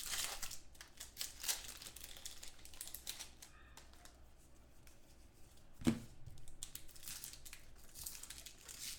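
Trading-card pack wrappers crinkling and tearing while cards are handled and flipped through. There is one sharp knock about six seconds in.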